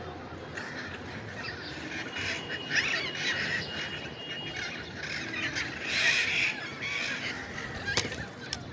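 Ringneck parrot squawking in a string of harsh calls, loudest about three and six seconds in, with a short sharp click near the end.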